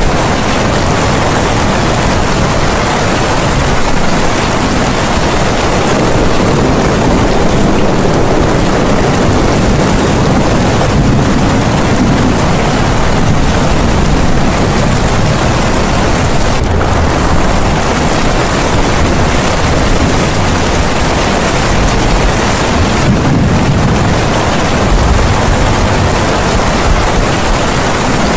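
Steady, loud rushing noise spread evenly across all pitches, with slow swells in its low end every ten seconds or so: a masking sound track of the kind laid over hidden subliminal affirmations.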